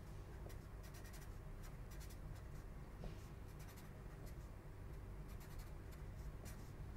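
Felt-tip marker writing on paper: faint, short strokes one after another.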